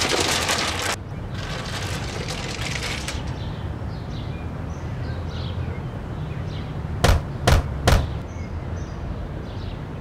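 Three sharp knocks on a door, a little under half a second apart, about seven seconds in, over steady background noise that has a brief loud rush in the first second.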